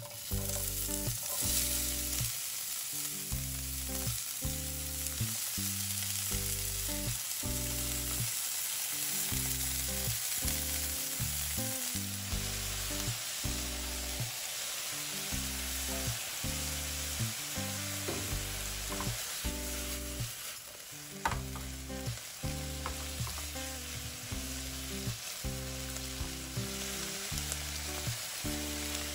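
Bean sprouts, cabbage, carrot and tuna sizzling as they are dropped into a hot oiled nonstick frying pan and stir-fried, with the spatula stirring and tossing them. The sizzle starts suddenly as the vegetables hit the pan and holds steady. About two-thirds of the way through it briefly dips, then there is a sharp knock.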